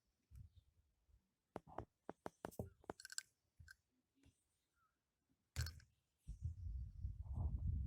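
Hand sewing awl and strap webbing being worked: a scattered run of light clicks and taps, then, from about six seconds in, a denser rubbing handling noise as the needle and thread are worked through the material.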